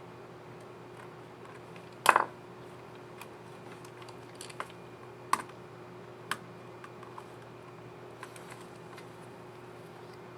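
Plastic clicks of a laptop keycap and scissor mechanism being fitted and pressed on an Asus TUF Gaming F15 FA506 keyboard: one sharp snap about two seconds in, then a few lighter clicks spread over the next several seconds. A low steady hum sits underneath.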